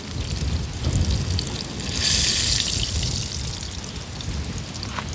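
Hot oil frying in an open pot, a steady sizzle that swells into a louder burst of sizzling about two seconds in. A low wind rumble on the microphone runs under it.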